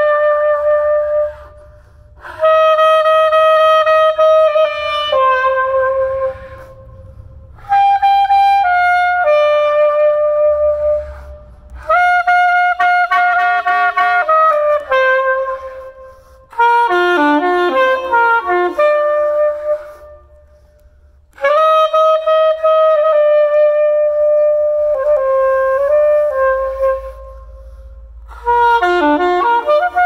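Soprano saxophone playing a slow melody in phrases of a few seconds, mostly long held notes with some quicker runs, separated by short breaks. The concrete parking garage's echo carries on into each break, and a low rumble sits underneath.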